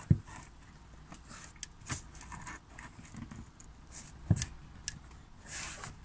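Hard plastic air intake housing knocking, clicking and scraping against the engine bay as it is lined up and pushed into place over the throttle body. The sharpest knocks come at the very start and a little past four seconds in.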